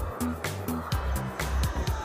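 Music with a quick, steady beat and heavy bass notes.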